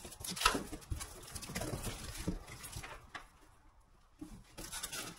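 Cardboard shipping box being opened by hand: the flaps are pulled back and folded open with short crackles, rustles and scrapes of cardboard, going quiet for a moment a little past the middle.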